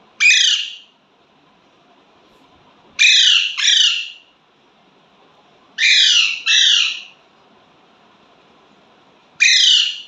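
Young Alexandrine parakeet giving loud, harsh squawks, six in all, each about half a second long: one at the start, a pair about three seconds in, another pair about six seconds in, and one near the end.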